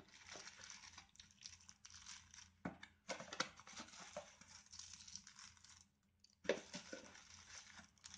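Clear plastic bags of action-camera accessories crinkling and rustling as they are handled and laid out, in three stretches broken by short pauses, with a few light clicks and taps.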